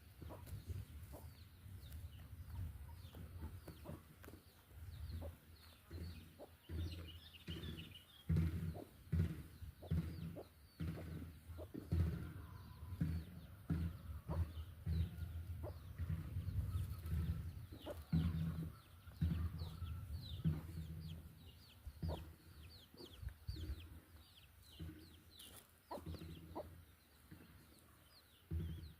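Domestic chickens clucking, with many short falling calls scattered throughout, over repeated low thuds close to the microphone.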